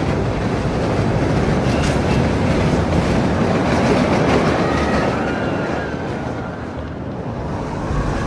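Roller coaster train running along steel track: a dense, continuous rumble and rattle, with faint high squealing tones gliding in the second half. It eases off slightly shortly before the end.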